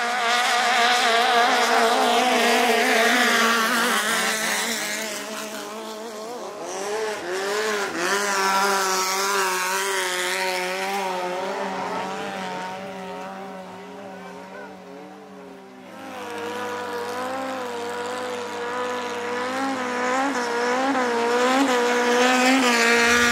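Racing longtail boat engines running hard at high revs, their pitch wavering and gliding as the boats speed past. The sound swells, fades through the middle and grows loud again near the end.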